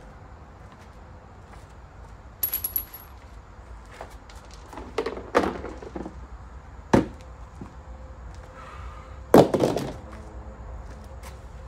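Metal tools and parts clanking and knocking: four separate knocks a couple of seconds apart, the loudest near the end, the first with a brief high metallic ring.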